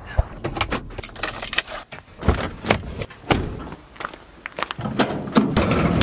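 Clinks, clicks and knocks of gear being handled and set down on a pickup's bed cover, with a plastic bag rustling near the end.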